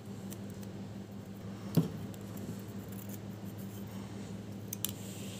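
Piston ring being worked off a Ford Cologne 2.9 piston by hand: one sharp metallic click about two seconds in and a couple of light ticks near the end, over a faint steady hum.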